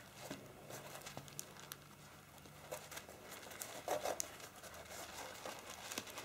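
Faint rustling and scattered light clicks of hands working a stained, varnished rope into a hanging loop on a wreath, a little louder about four seconds in.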